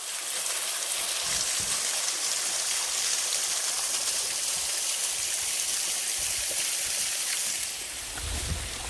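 Running water at a partly frozen waterfall: a steady, even rushing hiss.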